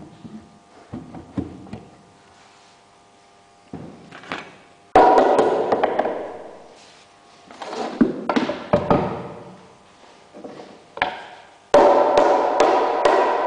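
Rubber mallet striking a wooden block to drive a carpentry joint home, with scattered knocks of wood being handled and one loud knock about five seconds in that rings on briefly. Near the end the strikes come fast, several a second, over a ringing hum.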